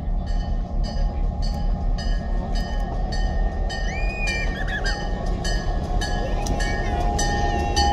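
Diesel locomotive passing close by at low speed: a steady low engine rumble with a rhythmic clicking of about two to three beats a second.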